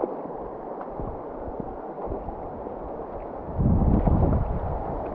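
River current rushing and gurgling over a gravel bed, a steady hiss of moving water. About three and a half seconds in, a low rumble lasts about a second.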